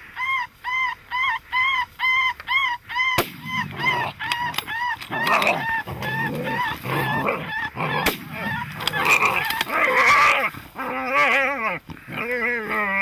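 A predator call playing rapid yelping distress cries, evenly repeated about three times a second, to lure a coyote. About three seconds in a knock is followed by rustling handling noise while the cries carry on fainter, and near the end a lower-pitched run of cries sounds.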